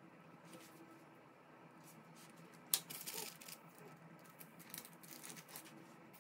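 Faint handling sounds: a sharp click almost halfway through, then light crinkling and rustling of baking parchment as the dough scraps are lifted off from around the cut cookie rounds.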